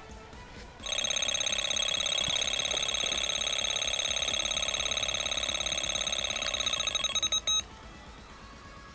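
Delkim electronic bite alarm screaming off with a fast, near-continuous run of beeps at one steady pitch: a carp taking line on a run. About a second in it starts, and it cuts off suddenly near the end as the rod is lifted off the rest.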